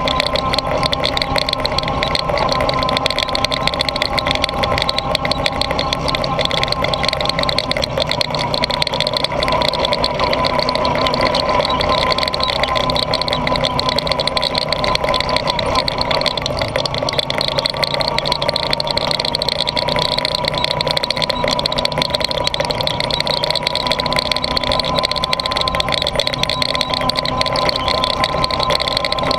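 Honda ATV engine running steadily under way along a dirt track, its pitch rising and falling slightly with the throttle.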